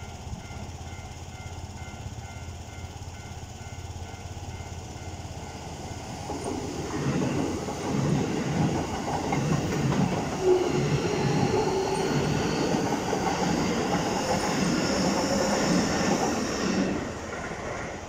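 A level crossing bell rings steadily at first. Then a Keikyu New 1000 series electric train passes close by from about six seconds in: wheels rumbling and clacking over the rail joints, with a high whine rising in pitch. It falls away just before the end.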